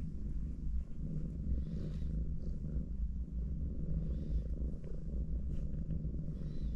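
Domestic cats purring steadily, a continuous low rumble, as they rest huddled together.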